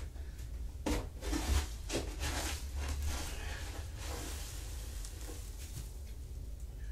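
A litter scooper scraping and sifting through cat litter in a litter box, a few sharper scrapes in the first two seconds and then softer rustling. A steady low hum runs underneath.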